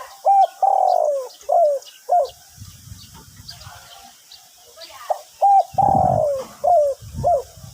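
A male spotted dove cooing twice in the same pattern: a short note, a long drawn-out coo, then two short closing notes. This is the 'two-kuk' song ending prized by Thai dove keepers. Faint chirps of small birds sound in the background.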